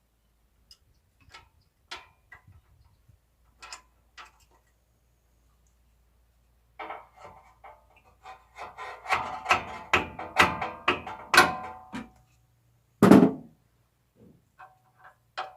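Metal hand tools clinking and rattling against each other, with sharp ringing clanks for several seconds in the second half. A few light clicks come before, and a single heavy thunk near the end.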